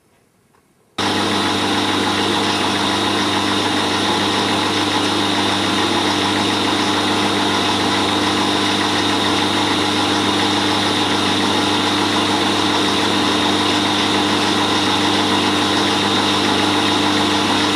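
A vertical-spindle machine tool running steadily with a constant hum and a high whine while it works on a steam waggon's firebox shell. It starts abruptly about a second in.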